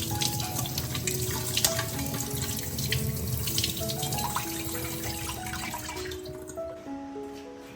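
Water running from a tap into a sink, with small knocks, over soft background music; the running water stops near the end.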